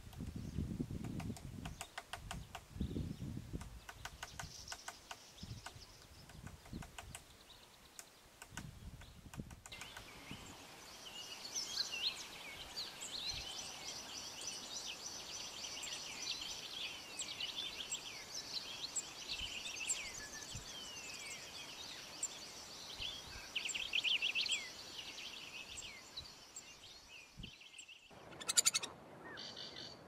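A woodpecker pecking at hard wood: irregular runs of quick, sharp taps. After about ten seconds this gives way to many small birds chirping and whistling together, with a short burst of noise near the end.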